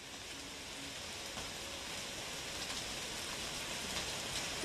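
A rain-like wash of hiss and crackle with scattered faint clicks, slowly swelling, with a few brief faint tones: the noise texture opening an ambient noise-music track.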